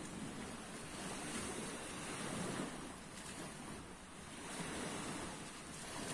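Small sea waves washing onto the shore, the noise rising and falling in slow swells, with light wind on the phone's microphone.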